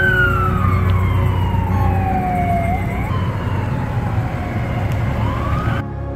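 Emergency vehicle siren wailing over a low rumble, its pitch gliding slowly down, then up and down again, cut off suddenly near the end.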